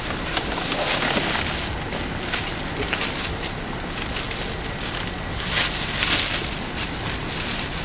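Shopping bags and packaging rustling and crinkling as goods are handled and lifted out of a car's boot, with a few louder crackles about two seconds in and again around five to six seconds in.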